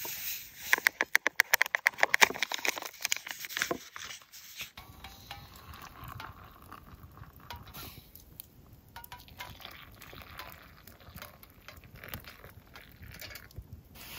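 A rapid run of loud, sharp clicks for about four seconds. Then, more quietly, a blackened camp pot clinks against metal mugs as hot water is tipped into a mug of cocoa powder.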